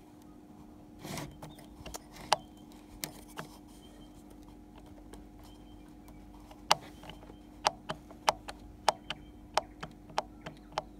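Drive shaft of a Breville Smart Grinder BCG820, burrs removed, being worked up and down by hand: sharp clicks, a few scattered at first, then an irregular run of about three a second from around the middle on, as the shaft knocks through its play of about 2 mm up and down. The owner suspects this much play lets the shaft get pushed up while grinding, making the grinder grind finer than it should.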